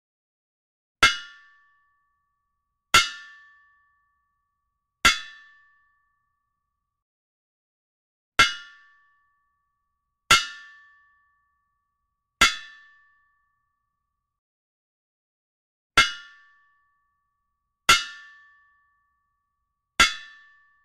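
Blacksmith's hammer ringing on an anvil: nine sharp clangs in three sets of three, about two seconds apart, each ringing out briefly, with a pause between the sets.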